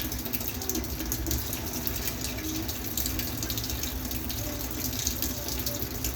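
Hot water, held near 200°F, running steadily out of a homemade electric inline water heater, with a fine crackling fizz over a low hum.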